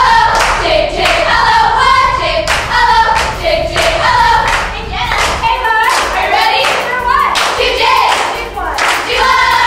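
A group of teenage girls sings a team chant together while clapping their hands along with it.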